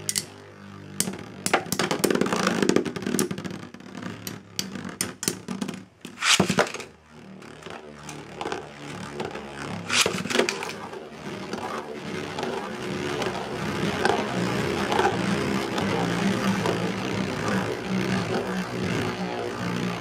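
Two metal Beyblades, Dark Knight Dragooon LW160BSF and Lightning L-Drago 100HF, spinning in a plastic stadium: a run of sharp metal clashes over the first several seconds and another hard hit about ten seconds in, over the steady whir of their tips grinding on the plastic floor.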